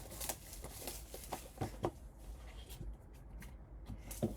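Light handling noises from trading cards and their packaging: scattered soft taps, clicks and rustles.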